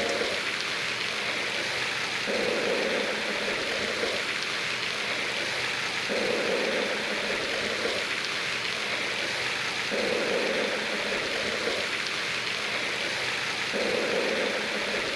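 Pond fountain aerator spraying, a steady splashing hiss like rain on water, with a duller swell about every four seconds.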